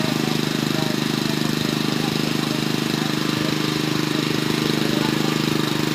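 An engine running steadily at a constant speed, with a fast, even pulse.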